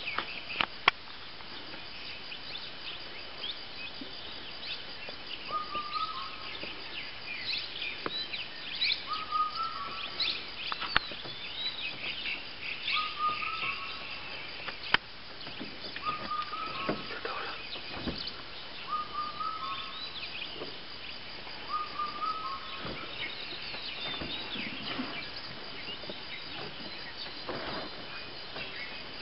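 Birds chirping, with one bird repeating a short call six times, about every three seconds. A few sharp clicks stand out, the loudest about a second in and about halfway through.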